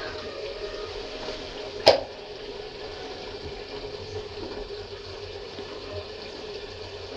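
Steady hiss of a gas stove burner, with one sharp clack about two seconds in.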